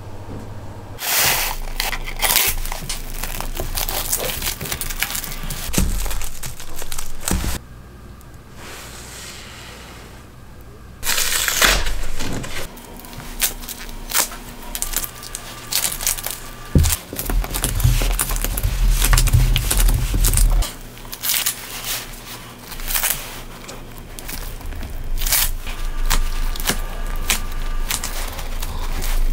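Close-up hand-work sounds: a metal blade scraping on a small fitting on a wooden block, epoxy putty being kneaded in nitrile gloves, and plastic cling film crinkling as it is pressed around a cordless drill. A low steady hum runs for about three seconds midway.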